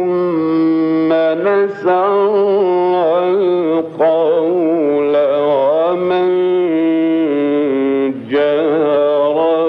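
Male Qur'an reciter chanting in the melodic mujawwad style: long held notes with ornamented runs, broken by short breaths about two, four and eight seconds in.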